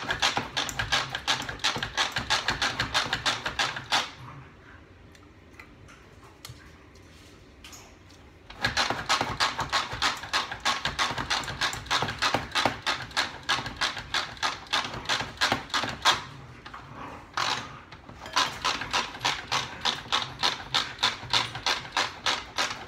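Hand-operated food chopper worked in repeated pulls, its mechanism clicking rapidly and evenly as the blades chop mango salsa. The clicking comes in three runs, pausing for about four seconds and then briefly again.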